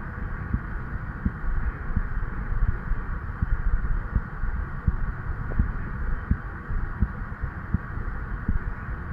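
An adult man's heartbeat over the tricuspid valve area, heard through a stethoscope chest piece and tubing into a lavalier microphone: dull low thumps in a steady rhythm a little faster than one a second, over a steady hiss.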